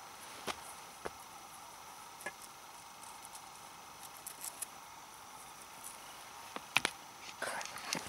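Quiet outdoor background with a faint steady hiss and a few scattered, irregular faint clicks and crackles, a pair of them sharper near the end.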